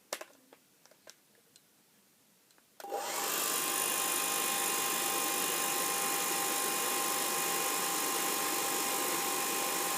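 Hairdryer switched on about three seconds in, its whine rising briefly as the motor spins up, then running steadily at a high setting with a constant whine over the rush of air.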